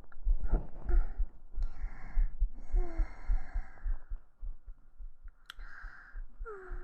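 A person's heartbeat picked up by a microphone pressed to the chest: steady low thumps, about three beats every two seconds. Soft breaths and sighs pass over it near the middle and again near the end.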